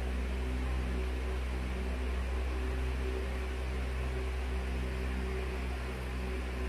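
Steady hum of a running motor: a deep drone with a few steady tones above it and a light even hiss, unchanging throughout.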